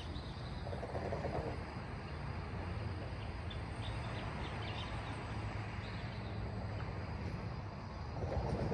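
Night outdoor ambience: a steady low rumble with scattered short high-pitched chirps of night insects and birds.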